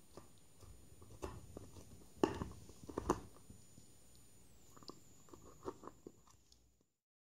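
Dog gnawing and chewing a dried beef gullet chew: irregular crunches and clicks, loudest about two and three seconds in, lighter after that. The sound cuts off suddenly near the end.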